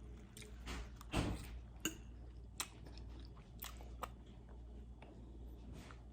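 Close-miked chewing of spaghetti with meat sauce: wet mouth smacks and small clicks, with one louder noise about a second in.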